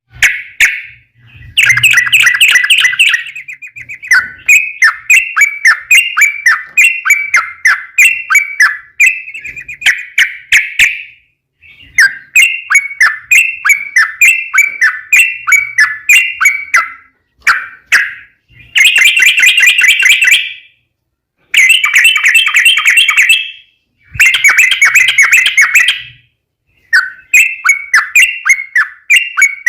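Yellow-vented bulbul (trucukan) singing in fast, rolling bursts of chirpy notes, several seconds at a time with short pauses between.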